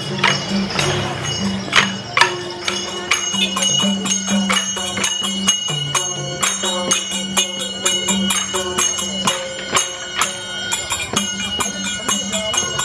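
Live procession music: a two-headed barrel drum beaten at about two strokes a second, with small cymbals or bells ringing on the beat and a held tone underneath.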